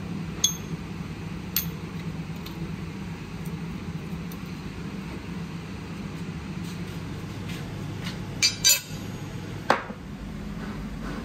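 Light clinks and knocks, a few spaced out and a quick cluster about eight and a half seconds in, over a steady low hum.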